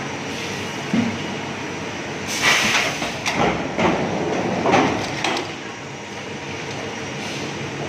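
High-frequency PVC welding machine working against a steady machine hum: a knock about a second in, then a burst of hiss and a run of clattering clicks from about two and a half to five and a half seconds, before the steady hum returns.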